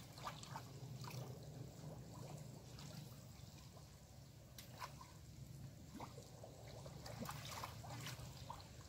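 Faint splashing and trickling of water as a person wades through a shallow ditch and handles a fishing net, with scattered small splashes over a faint steady low hum.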